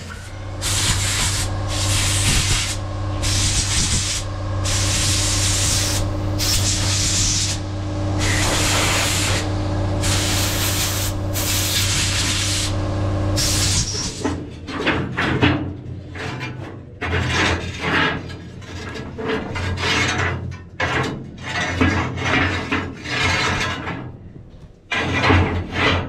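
Repeated rough rubbing and scraping of metal over a steady low hum. About halfway through the hum stops and the scraping turns into looser, irregular scrapes and knocks.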